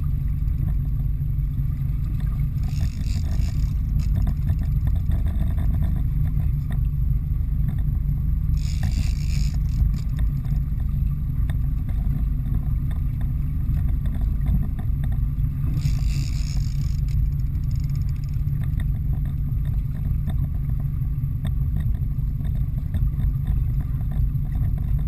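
A boat's engine running with a steady low rumble, heard from on board, with three brief hisses about six seconds apart.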